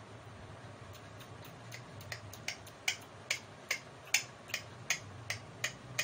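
A steady series of sharp clicks, about two and a half a second, faint at first and clear from about two seconds in.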